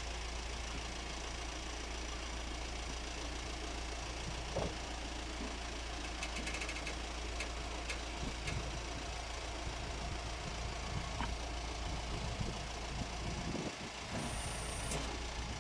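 Diesel engine of a Toyota-based dual-mode vehicle idling steadily during its changeover from road to rail mode. A few light clicks come through about midway, and a brief hiss near the end.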